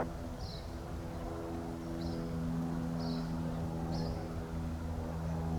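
The Cessna 172N Skyhawk's four-cylinder Lycoming engine and propeller are running steadily and growing slightly louder. A small bird chirps briefly about once a second.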